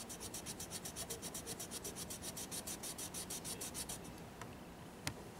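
Wax-based colored pencil rubbed quickly back and forth over sketchbook paper, an even scratchy stroke several times a second, which stops about four seconds in. A few faint clicks follow.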